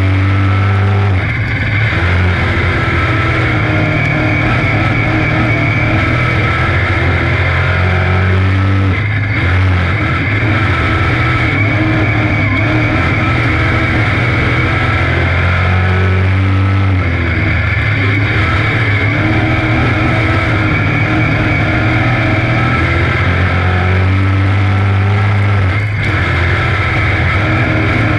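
Dirt-track sportsman modified's GM 602 crate V8 engine racing, heard from inside the cockpit, its pitch rising and falling in regular cycles of several seconds as the driver gets on and off the throttle.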